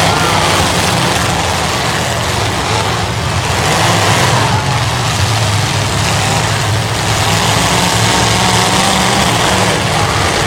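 Several demolition derby cars' engines running and revving together, a loud steady din with a few rising and falling revs.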